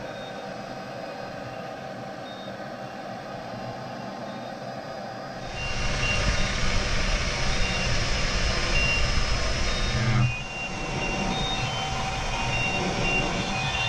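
Steady machinery hum inside a submersible's cabin, likely the sub's motors and fans running, with short high electronic beeps now and then. The hum grows louder and fuller about five seconds in, then eases a little at about ten seconds and keeps going.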